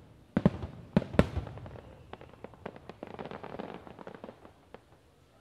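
Aerial fireworks: four sharp bangs in the first second and a half, then a few seconds of dense crackling pops that fade out.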